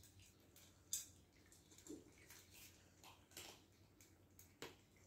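Faint crunching and clicking of cats eating dry kibble from a bowl, with one sharper click about a second in.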